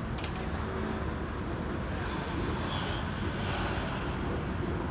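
Distant Boeing 737-800 jet flying high overhead, its CFM56 engines heard as a steady low rumble.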